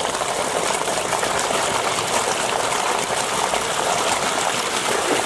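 Heavy stream of water gushing steadily from a farm irrigation pipe and splashing onto the ground.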